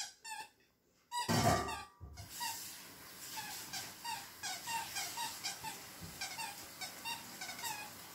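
Squeaker in a Kong Cozie plush moose toy squeaking in short, regular squeaks about twice a second as a poodle puppy chews on it. A brief, louder noise comes about a second in.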